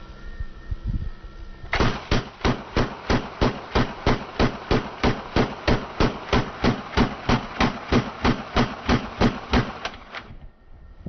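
Submachine gun firing a steady string of single shots, about four a second, some thirty in all, starting about two seconds in and stopping about a second before the end.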